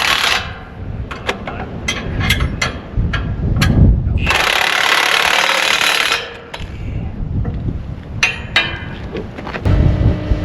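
Metal knocks and clanks of shop work on a heavy equipment frame, with one heavy thump. About four seconds in, a pneumatic tool runs for about two seconds as bolts are driven.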